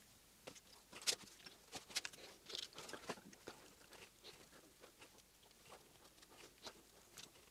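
Faint, scattered small clicks and light metal taps of a hex key working the gib adjusting screws on a lathe cross slide.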